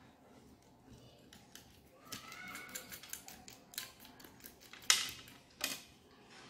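Faint scraping and small clicks of hardened paraffin wax being worked away from around the wick of a candle in a tin mould, with two sharp clicks close together near the end.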